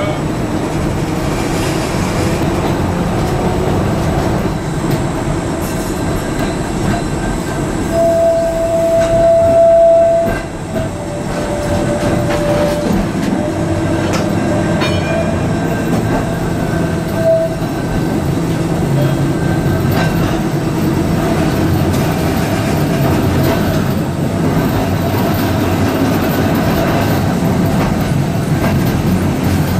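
Blackpool twin-car tram running along the track, heard from inside the front saloon: a steady rumble of motors and wheels on rail. About eight seconds in, a loud steady high note sounds for two to three seconds, followed by fainter, briefer notes of the same kind.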